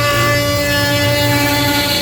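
Router motor on a Onefinity Foreman CNC running steadily while cutting oak: a loud, steady whine of several held tones over a rushing noise.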